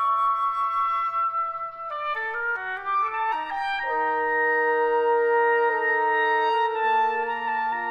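Chamber wind ensemble of flute, clarinet, French horn and other winds playing a contemporary minimalist piece. A held flute note gives way about two seconds in to a quick run of short notes across the instruments, which then settles into sustained overlapping chords; a low held note comes in near the end.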